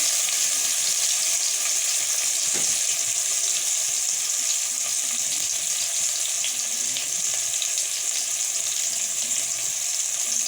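Yogurt-marinated tandoori momos shallow-frying in a little hot oil in a pan: a steady sizzle dotted with fine crackles.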